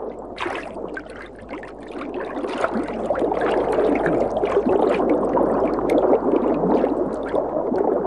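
Shallow river water splashing and gurgling, from chum salmon thrashing as they spawn. It grows louder after the first couple of seconds.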